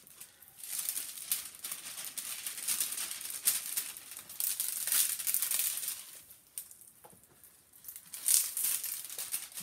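Clear plastic film over a diamond painting canvas crinkling as hands press and smooth it flat, in two spells with a short lull about two-thirds of the way through.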